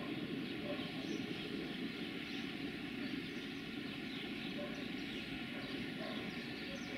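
Road traffic, cars and a van passing one after another close by, a continuous tyre and engine rumble, with small birds chirping faintly above it.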